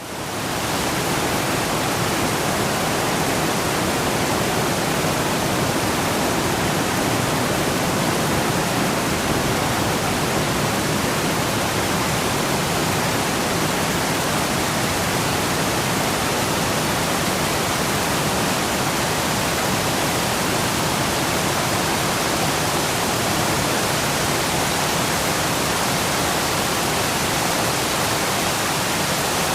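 Steady rain falling on a lake's surface, an even hiss of countless drops with no distinct patter or thunder, fading in over the first half second.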